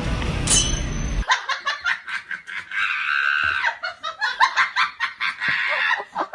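Music cuts off about a second in. It is followed by high-pitched laughter in rapid short bursts.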